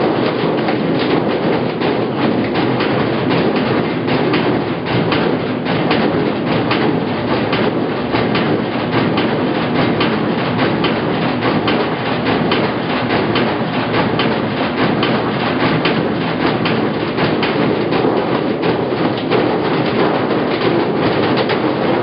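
Washing machine running: a loud, steady, dense clatter of rapid irregular clicks over a rushing noise.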